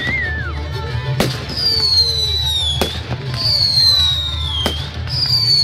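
Whistling fireworks: a falling whistle of about a second and a half ends in a sharp bang, three times in a row, over a steady low rumble.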